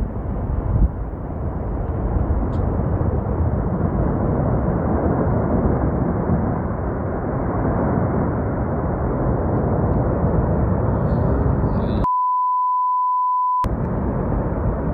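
Avalanche of snow sweeping down close by: a loud, deep, steady rushing rumble. About twelve seconds in, a single steady censor bleep lasting about a second and a half replaces all other sound.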